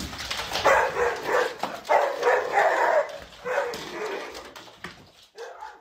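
A dog barking in a run of short calls that grow fainter near the end.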